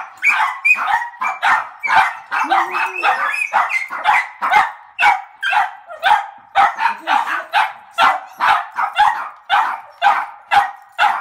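Small doodle-type dogs (mini goldendoodles and cavapoos) barking and yipping excitedly in a rapid, unbroken string, about two to three barks a second, at the prospect of a walk.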